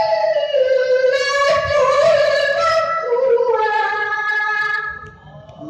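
A boy qari chanting Quran recitation in the melodic style: long, ornamented held notes that step downward in pitch, then fade out about five seconds in.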